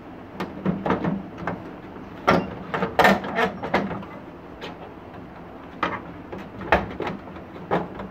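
Plastic knocks and clicks from a Canon imageRUNNER 2420 photocopier's side cover and left door being handled, with a cluster of sharper knocks about two to four seconds in and single clicks near the end.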